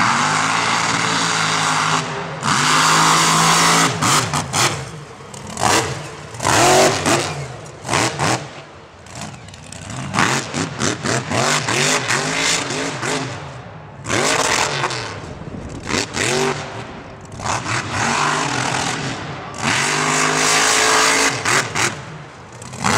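Modified off-road race trucks' engines revving hard, the pitch climbing and dropping over and over with sudden surges of full throttle and short lulls as the throttle is let off.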